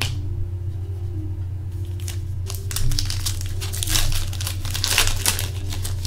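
A trading-card pack's foil wrapper being crinkled and torn open by hand. The crinkling comes in quick rustling bursts from about two seconds in, over a steady low hum.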